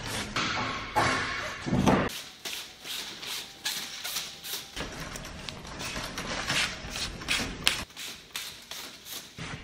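Gloved hands rubbing and patting pleated screen mesh on a workbench: a run of short, irregular rustles and soft taps.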